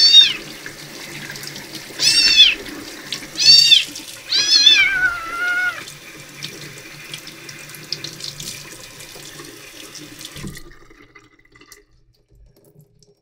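Tap water running into a sink while a young kitten is rinsed under it, the kitten crying out in high-pitched meows four times, the last one longer and falling in pitch. The water stops about ten and a half seconds in.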